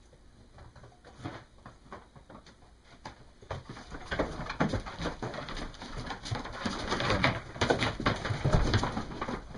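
Sheep shuffling and rustling in a crowded barn pen while a ewe is held, irregular clatter and scuffling that grows louder about three and a half seconds in.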